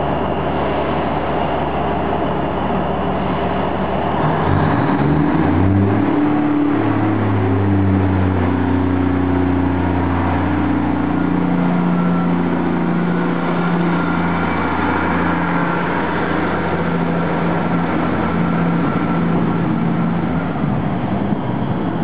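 Class 153 diesel railcar's underfloor Cummins diesel engine ticking over, then opening up about four seconds in as the unit pulls away. The engine note climbs in steps and then holds steady, shifting again partway through as the railcar accelerates past and draws away.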